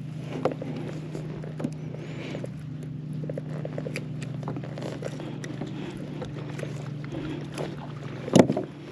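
Small clicks and knocks of a weakfish being unhooked and handled in a plastic kayak, with one loud knock near the end, over a steady low hum.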